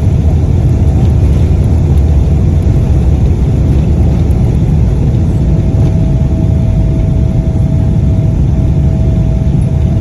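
Jet engines of a Boeing airliner at takeoff power: a loud, steady low rumble with one thin steady tone running through it.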